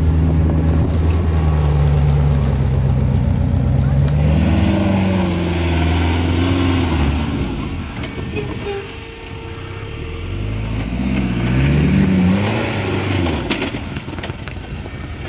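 Off-road buggy engine revving as it drives over rough ground, its pitch rising and falling with the throttle. It eases off about nine seconds in and revs up again a few seconds later.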